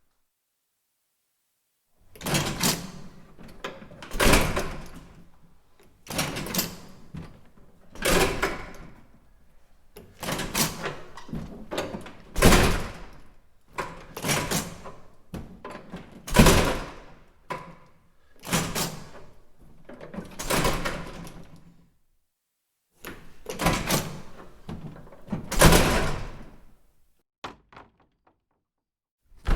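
A door shut over and over: about a dozen separate bangs, one to two seconds apart, each starting suddenly and dying away within about a second.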